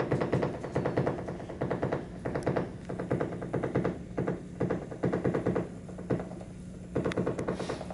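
Experimental electronic music played live on modular synthesizers: bursts of rapid, stuttering clicks and pulses over a steady low tone, thinning out for about a second around two-thirds of the way through.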